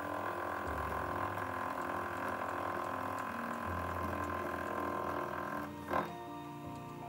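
A small milling machine's end mill cutting a slot in a metal block, a steady mechanical running and cutting sound, with a short sharp click about six seconds in. Background music plays with it.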